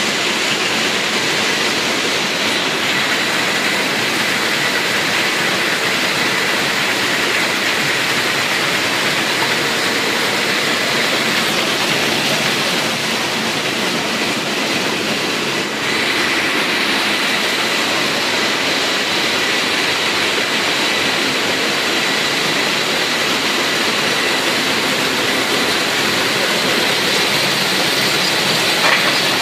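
LČCH 2 hop-picking machine running at work: a loud, steady mechanical rushing din with a constant high whine over it, as hop bines pass through and picked cones and leaves ride the conveyors.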